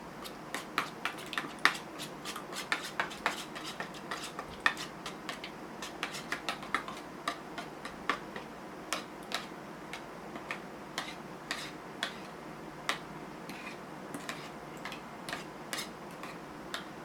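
Kitchen utensils clicking and knocking in an irregular run of sharp little taps, a few a second, growing sparser after about the middle.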